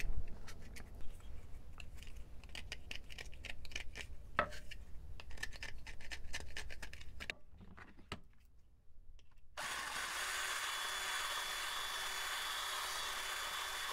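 A hobby knife scraping and shaving the edge of a freshly drilled hole in a plastic gas-can cap, a run of quick scrapes. After a short pause, about ten seconds in, a handheld electric drill starts running steadily with a faint high whine, its bit turning in the hole to clear away burrs.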